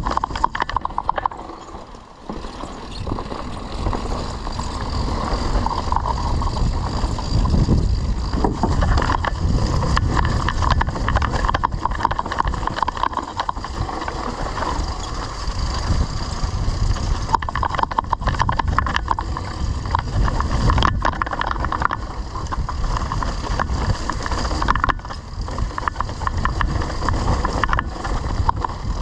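Mountain bike on a fast offroad ride: wind buffeting the microphone over a constant rumble and rattle of tyres and bike on a dirt trail, easing briefly about two seconds in.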